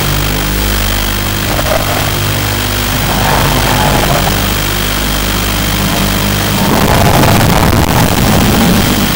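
FPV quadcopter motors and propellers running, over a steady hiss. The tone changes about three seconds in and turns rougher and louder about seven seconds in as the throttle varies.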